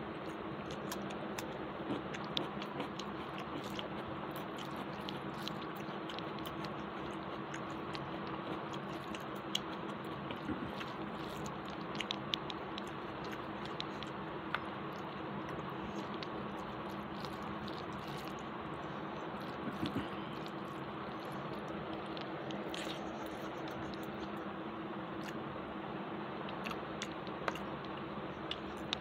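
Close-up eating sounds: fingers mixing rice and chicken curry on a plate, with chewing and many small clicks and squelches of the mouth, over a steady background hum.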